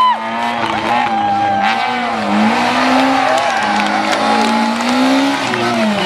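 Rally car engine at full song through the stage, its revs climbing and dropping several times with gear changes and lifts. Near the end it falls away in pitch as the car passes.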